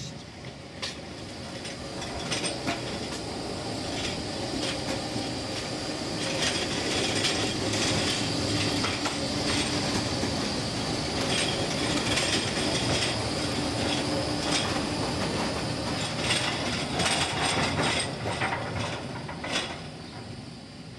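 Articulated low-floor tram passing close by: the rolling noise of steel wheels on rails builds up, with wheels clicking over rail joints and a steady high whine, then falls away near the end as the tram moves off.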